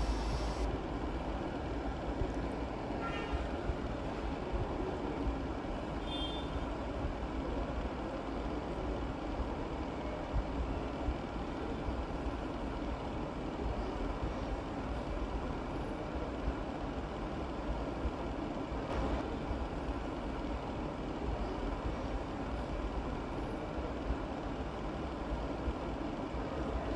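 A steady low rumble of background noise, with a few soft knife taps on a plastic cutting board as a vegetable is diced.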